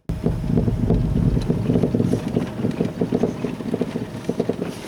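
Nissan Leaf driving over a rough road, heard from inside the cabin: a steady low rumble with rapid, irregular knocks from the front suspension. This is the suspension knock the owner has been chasing, which he suspects comes from a worn right lower-arm bushing or the struts.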